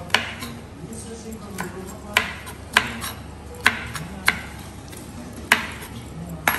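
A spatula knocking and scraping in a rectangular frying pan as chopped vegetables are stirred: about eight sharp, irregular taps, roughly one a second.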